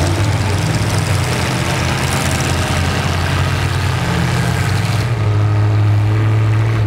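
Full-size pickup truck engines running with a steady low drone as the demolition derby trucks move in the mud pit. A brighter rushing noise over the engines drops away about five seconds in, leaving only the drone.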